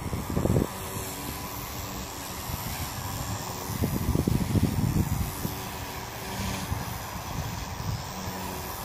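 Blade 150S micro RC helicopter in flight, its rotors and motor making a faint, steady whine. A low rumble swells twice, near the start and about four seconds in.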